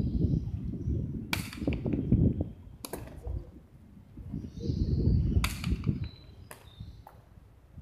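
Hard jai alai pelota cracking against the frontón wall and court during a cesta punta rally: several sharp single hits, one to three seconds apart, the loudest about a second and a half in and again near the middle.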